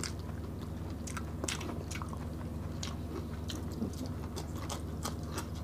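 Close-miked eating: two people biting into and chewing boiled vegetables, with many irregular wet mouth clicks and smacks.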